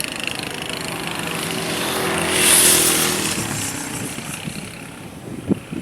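A motor vehicle passing close by: its engine hum and tyre noise build to a peak about two and a half seconds in, then fade away.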